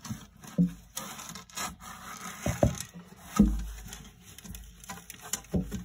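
Wet rag rubbing and scrubbing on the glass bottom of a reptile tank, with a few dull knocks along the way.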